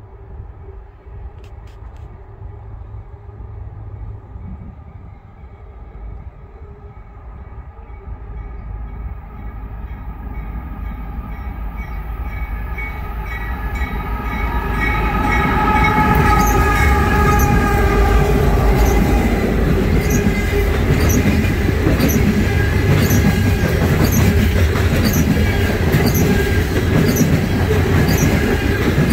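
Diesel freight locomotives hauling a loaded coal train approach and pass. Their horn sounds as they near and drops in pitch as the lead unit goes by. The rumble grows to its loudest about halfway in, then the coal hopper cars roll past with a steady rumble and regular wheel clicks on the rails.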